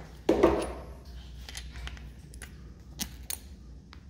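Loose steel regulator mounting bolts clinking as they are handled by hand: one louder metallic clatter about half a second in, then a few light clicks.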